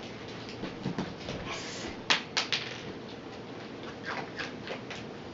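A dog's claws clicking and tapping on a hard floor as it steps about, a quick cluster of sharp clicks about two seconds in and a few lighter taps later.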